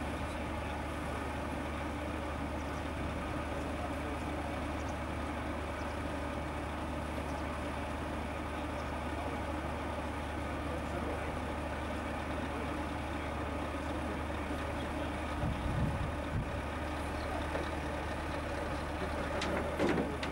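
Scania truck's diesel engine idling steadily, a low even hum with a brief low swell about three-quarters through.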